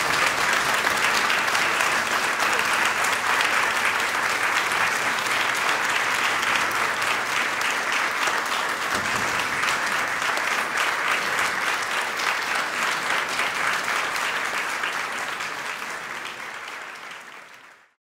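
Audience applauding steadily, dense clapping that fades out near the end.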